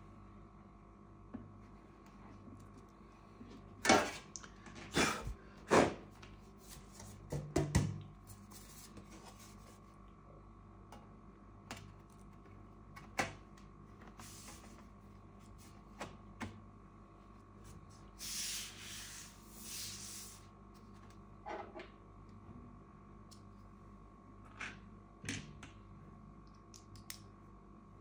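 Handling sounds as the aluminium bottom cover of a MacBook Air is fitted back on and pressed into place. A cluster of sharp knocks and clicks comes about four to eight seconds in, a rubbing noise about two-thirds of the way through, and a few lighter clicks near the end, over a faint steady hum.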